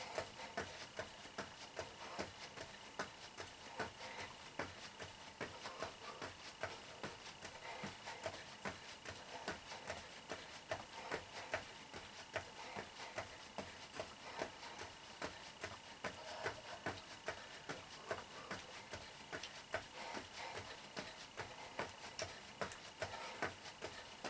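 Feet landing softly in a steady rhythm, about two landings a second, as a person does jumping jacks in sneakers on foam mats over a concrete floor.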